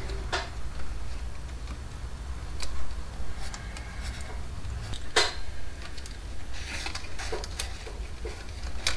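Small plastic clicks and taps of wire connectors and parts being handled, while a Y cable is fitted into an RC truck's receiver. The taps are scattered: one louder tap about five seconds in and several close together near the end, over a steady low hum.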